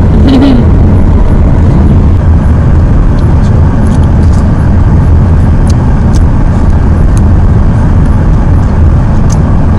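Steady low rumble of a car driving along a road, heard from inside the cabin, with a few faint clicks.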